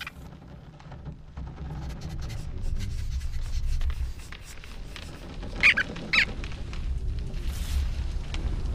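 A low, steady rumble, with two short, high squeaks about half a second apart a little past the middle.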